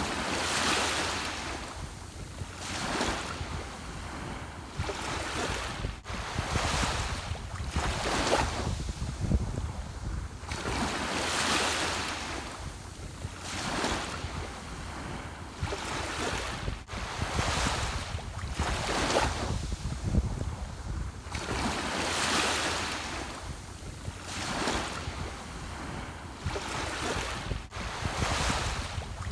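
Ocean waves breaking and washing up in repeated hissing surges every two to three seconds, over a steady low rumble of wind on the microphone.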